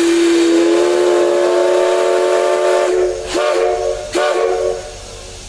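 Steam whistle of a C11 tank steam locomotive, sounding a chord of several notes together: one long blast of about three seconds, then two short blasts.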